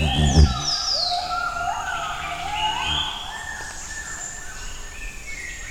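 Bornean white-bearded gibbons singing their morning song: overlapping whooping notes that rise in steps, with higher falling whistles over them. A brief low sound comes in the first half second.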